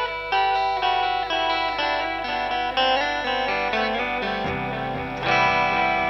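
Electric guitar playing a run of single notes through a Madbean Dirtbaby, a PT2399 delay pedal inspired by the Deluxe Memory Man, each note hanging over into the next. Lower notes come in about four and a half seconds in, and the playing grows louder just after five seconds.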